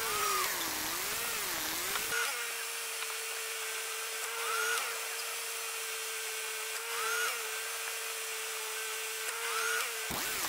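Car engine idling under the open hood with a steady mid-pitched whine that wavers for the first two seconds, then holds level, and faint short chirps about every two and a half seconds.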